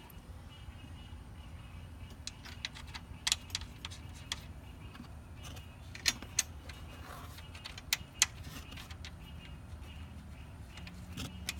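Scattered metallic clinks and taps of bolts, nuts and hand tools being handled while an aluminium strut bar is fitted over the strut tower studs. The sharpest clinks come about three, six and eight seconds in, over a low steady hum.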